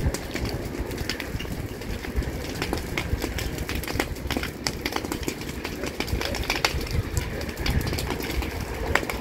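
Dry brush fire burning: frequent sharp crackles and pops over a steady low rushing noise.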